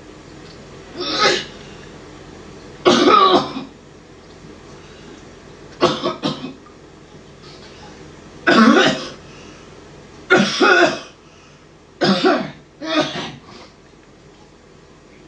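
A person coughing and clearing their throat in short, harsh bursts, about seven times, one to three seconds apart.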